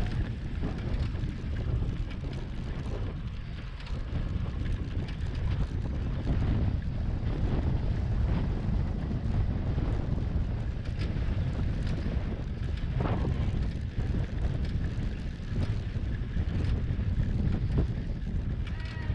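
Wind buffeting a handlebar-mounted action camera's microphone on a moving bicycle, with the tyres running over brick paving: a steady low rumble.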